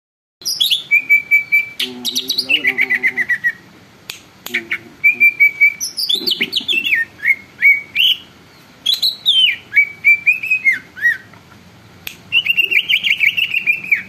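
Cucak ijo (green leafbird) singing loudly in a cage: fast runs of repeated chirps and whistled notes that often drop in pitch, in bursts with short pauses between phrases.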